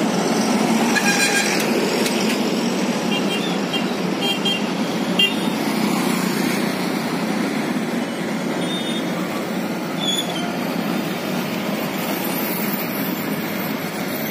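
Busy road traffic of trucks and motorbikes running steadily, with short horn beeps a few seconds in and a couple more later.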